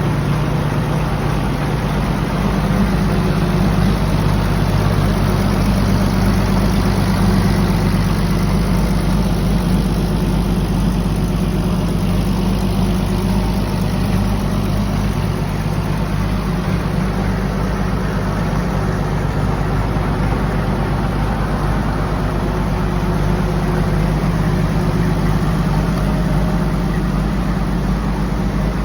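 Vintage Lombard tractor-truck engine running steadily at idle, warming up, with an even, rapid firing beat.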